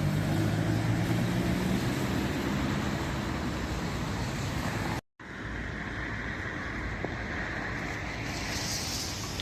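Road traffic noise: a vehicle engine passes in the first few seconds over a steady traffic roar, which continues more evenly after a brief dropout about five seconds in.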